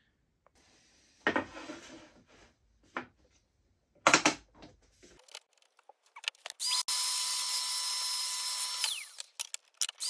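Festool Domino joiner's motor starting up, running steadily for about two seconds and winding down, then starting again near the end. A few knocks of wood being handled come before it, about a second and about four seconds in.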